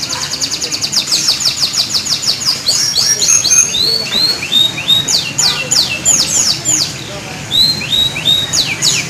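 Canary singing: a fast trill of quick descending whistled notes, about eight a second, then slower, varied phrases of sweeping and hooked notes, with another quick trill near the end.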